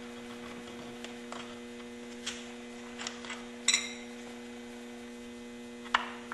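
Steady electrical mains-type hum, with a few small clicks and knocks from the plastic pump parts being handled. The sharpest click comes about halfway through.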